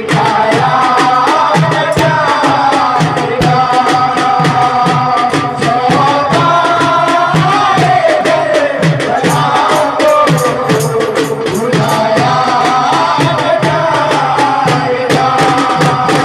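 Devotional music: a gliding, sustained melody over a steady drum beat of about two strokes a second, with frequent sharp percussive clicks.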